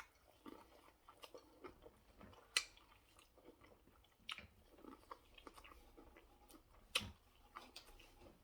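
A person chewing and biting food close to the microphone, soft and irregular, with two sharp clicks about two and a half seconds in and near the end.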